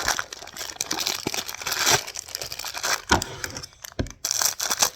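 Plastic packaging crinkling and rustling as it is handled, with scattered small clicks.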